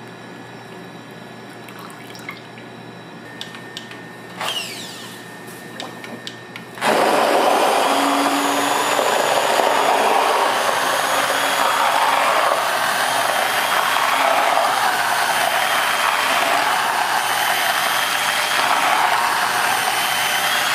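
A few light clicks and knocks, then about seven seconds in a small electric motor appliance switches on and runs steadily and loudly with a faint high whine.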